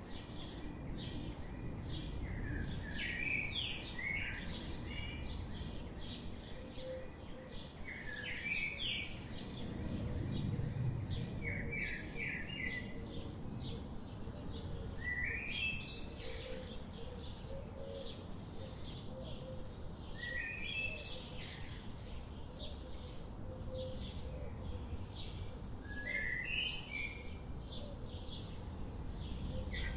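Wild birds chirping, giving short phrases of quick high notes every couple of seconds, over a steady low outdoor background hiss and rumble.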